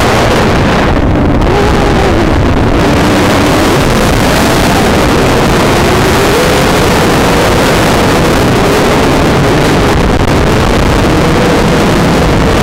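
Small drone's electric motors and propellers heard from the onboard camera, a continuous buzz whose pitch wavers up and down with the throttle, mixed with heavy wind rushing over the microphone.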